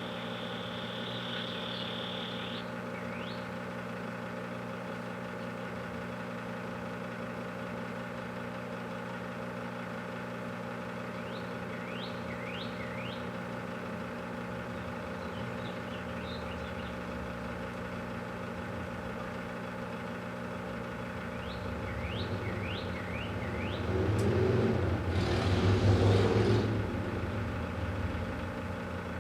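Large microwave oven running with a steady electrical hum, cooking a whole watermelon. A few faint, short, high squeaks come through the hum, and about 24 seconds in there is a louder, rough burst of noise lasting a few seconds.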